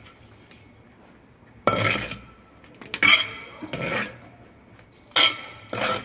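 Steel masons' trowels scraping and knocking mortar along the top of hollow clay bricks: a handful of sharp strokes from a couple of seconds in, each with a brief metallic ring.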